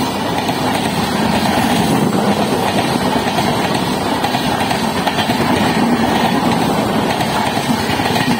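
Superfast express train running at speed, its wheels on the track making a steady, loud rumble with no horn.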